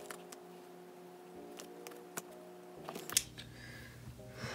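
Faint clicks and light taps from stickers and a small tool being handled on a binder's pages, with a sharper click about three seconds in.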